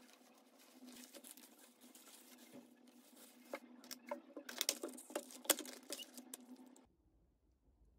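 A plastic carrier bag being untied and rustled, then plastic food trays set down on a wooden table, with a flurry of sharp clicks and knocks in the middle. The sound cuts off suddenly near the end.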